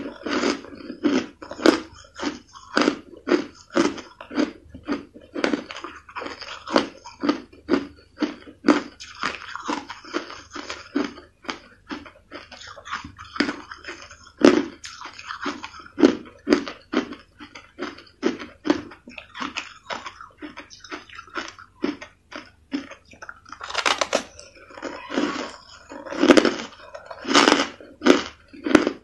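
Crushed ice being chewed in the mouth: a steady run of crisp crunches, about three a second, with a few heavier bites near the end.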